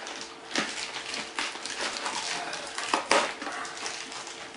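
Rustling and clicking of packaging being handled, as items are taken out of a box, with irregular crackles and a couple of sharper clicks about three seconds in.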